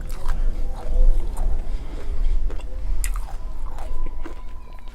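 Close-miked chewing of Nerds Rope candy: the tiny hard Nerds crunching and crackling in irregular sharp clicks over a low chewing rumble.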